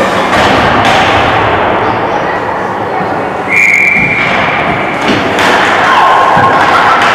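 Ice hockey game in a rink: repeated thuds of sticks, pucks and skates over a steady noisy din, with scattered voices. A short high steady tone sounds about three and a half seconds in.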